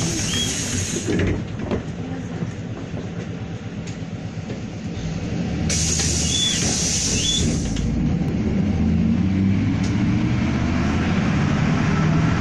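Steady running rumble and motor hum inside a moving public-transport vehicle, rising slightly in pitch in the second half as it gathers speed. A loud hissing burst comes about six seconds in and lasts about two seconds.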